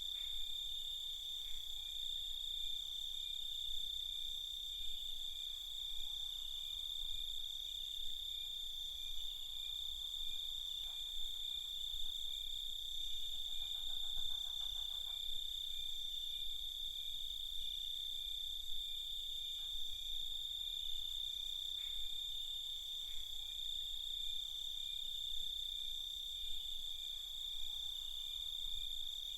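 A chorus of crickets at night, a continuous high trill that holds steady throughout. About halfway through, a fainter, lower trill joins briefly.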